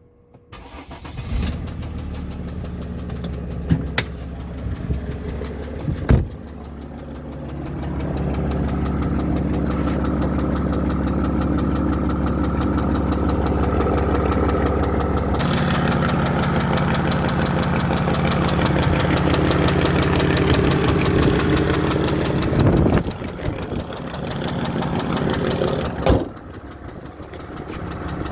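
Mercedes OM642 3.0 V6 turbo diesel starting and running with a knocking noise, which began after a new turbo was fitted. It gets louder about eight seconds in and drops back near the end, with a few sharp clicks early on.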